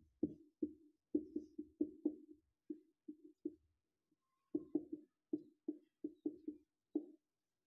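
Marker writing on a whiteboard, the strokes knocking against the board as short hollow taps. There are two runs of about ten quick taps each, with a pause of about a second between them.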